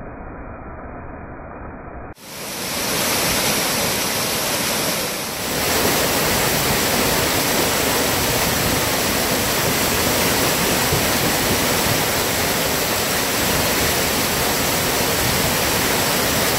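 Waterfall pouring over rocks into a pool: steady, loud rushing of falling water. It is muffled for the first two seconds, then full and bright after a sudden cut.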